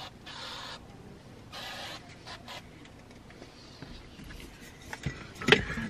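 Rustling and handling noises as bags and belongings are moved in and out at an open car door, in several short swells, with a few light clicks and a sharper knock near the end.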